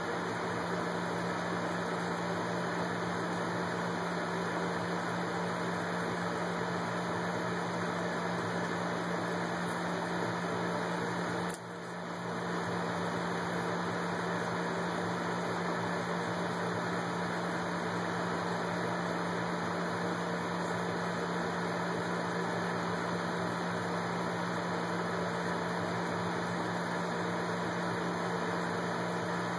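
Steady mechanical hum with a constant low drone, dipping briefly about twelve seconds in.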